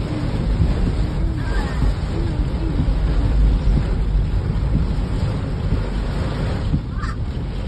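Heavy rain drumming on a moving car's roof and windshield, heard from inside the cabin: a steady loud rush with a deep rumble underneath.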